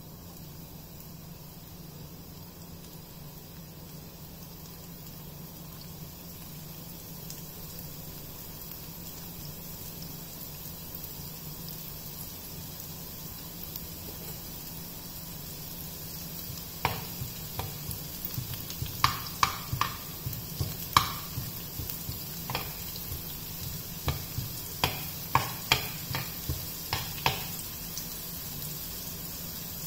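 Cumin seeds in hot oil in a frying pan: a steady low sizzle, then from a little past halfway a run of about twenty irregular sharp pops and crackles as the seeds splutter, the sign that the oil is hot enough.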